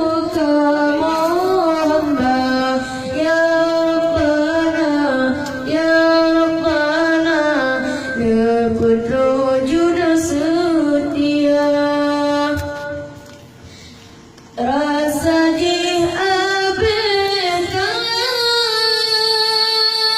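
A solo female voice sings long, ornamented melodic phrases with held notes. Near the end it pauses for a breath of about a second and a half, then comes back in.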